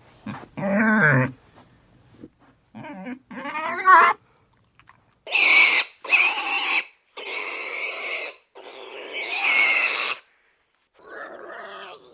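Pig calling: a few short pitched grunts in the first four seconds, then a run of four long, shrill squeals of about a second each from about five seconds in, with another starting near the end.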